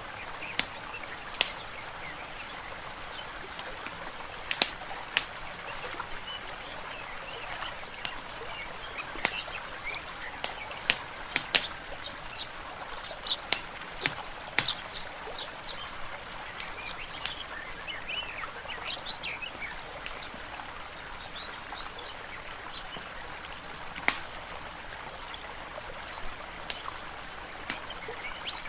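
Nature ambience mix: a steady wash of water, a crackling wood fire giving scattered sharp pops, and small birds chirping, most busily through the middle.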